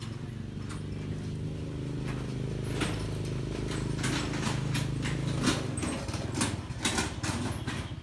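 A motor engine running steadily and growing slightly louder. In the second half come a run of sharp clicks and rattles.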